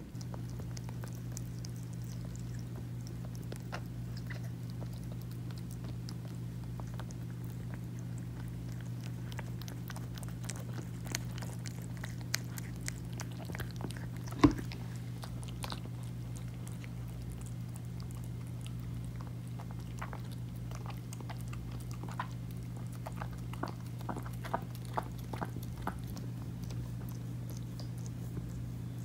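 A mother cat licking and nibbling her newborn kitten clean, heard as a run of short, wet licking and chewing clicks over a steady low hum. One sharp click about halfway through is the loudest sound.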